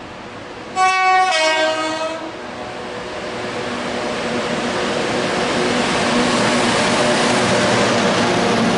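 Class 92 electric locomotive sounding its two-tone horn about a second in, a higher note then a lower one, for just over a second. Then its running noise and a steady hum grow louder as it comes near and passes.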